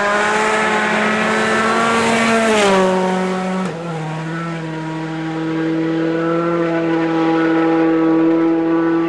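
2.0-litre turbocharged four-cylinder World Rally Car engine at high revs as the car comes fast along a gravel road, with a hiss of tyres on the gravel. Its note drops in two steps about three and four seconds in as it passes, then holds a steady pitch.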